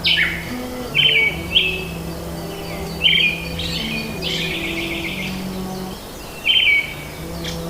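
Birds chirping in short, repeated calls, about half a dozen in a few seconds, over low held tones.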